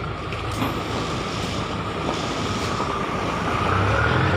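An engine running steadily over a wash of wind noise, its low hum growing louder near the end.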